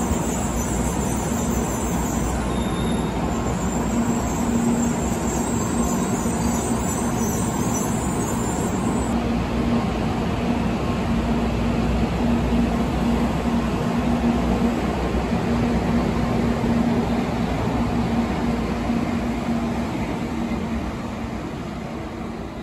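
N700-series Shinkansen train running through the station on a tight curve: a loud, steady rushing rumble with a constant low hum, fading away over the last few seconds.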